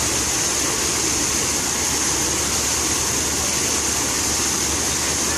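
Park fountain's falling water splashing steadily, a continuous hiss with no breaks.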